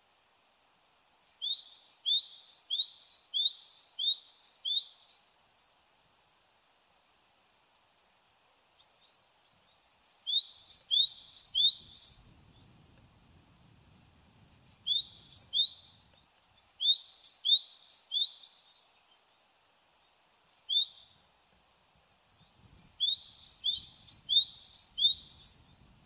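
Japanese tit singing its two-note song, a high note dropping into a lower one, repeated about twice a second in six runs of several phrases with short pauses between.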